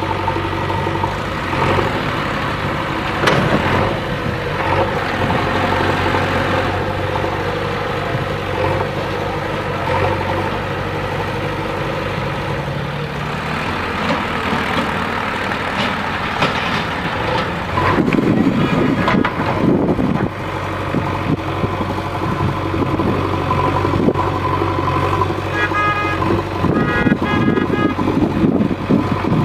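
Diesel engine of a JCB 3DX backhoe loader running under work, steady with a louder, rougher surge about two-thirds of the way in. Near the end comes a quick run of short beeping toots.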